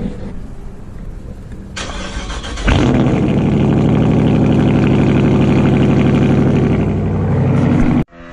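Dodge Charger Daytona's HEMI V8 being started: a brief crank a couple of seconds in, then it catches loudly and runs at a steady idle, stopping abruptly near the end.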